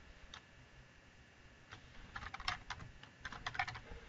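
Typing on a computer keyboard: a single keystroke near the start, then two short runs of quick keystrokes in the second half.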